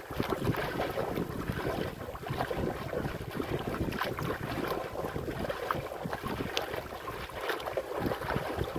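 Wind buffeting the microphone over waves sloshing and splashing against the hull of a small wooden outrigger boat in choppy sea.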